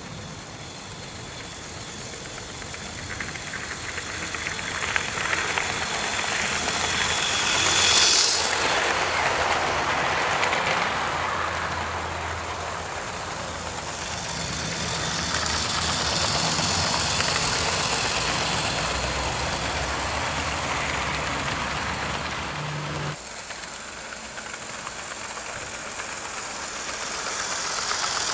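Model class 47 diesel locomotive hauling coaches along a garden railway: its electric motor and wheels running on the track, swelling as the train nears and fading as it moves away. It happens twice, and the sound drops suddenly about 23 seconds in before building again near the end.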